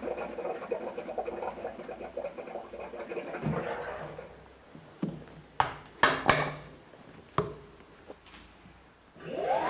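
Washpod High Impact 1200 parts washer: a steady mechanical hum fades out as its heavy lid comes down with a knock, then several sharp clacks as the lid is secured. Near the end the washer starts up with a rising whir.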